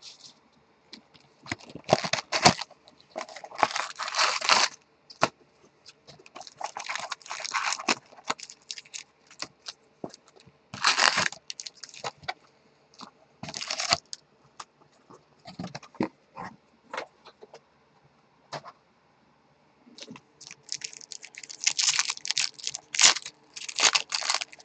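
Crinkling and tearing of packaging in irregular bursts with pauses between, as a sealed Bowman baseball card hobby box is unwrapped and opened; near the end a longer stretch of crackling as a foil card pack is torn open.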